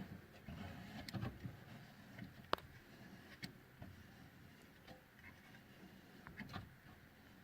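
Faint metal clicks and handling noise as a furnace gas valve is threaded by hand onto its gas pipe, with one sharper click about two and a half seconds in.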